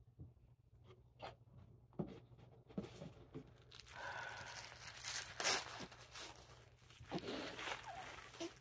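Paper wrapping being handled and torn open: a few light clicks, then from about four seconds in a steady crackly rustling and tearing as the blue paper is pulled apart by hand.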